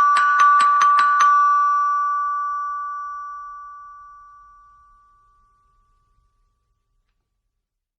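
Doorbell ringing with rapid repeated strikes, about five a second, on two bell tones. The striking stops after just over a second and the ring fades out over about four seconds.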